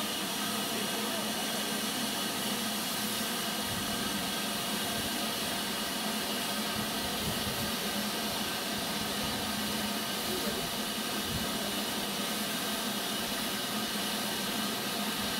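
Steady hiss of escaping steam from a Black 5 steam locomotive standing in steam.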